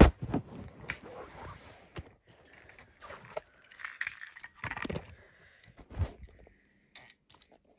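Handling noise: irregular rustles, scrapes and clicks as the recording phone or camera is moved and pressed against bedding fabric, with a sharp click at the start.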